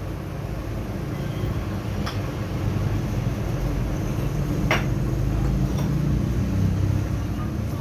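A steady low rumble like an engine running nearby, with a few light metallic clicks, the sharpest about halfway through, as a turbocharger's turbine shaft is fitted into its bearing housing.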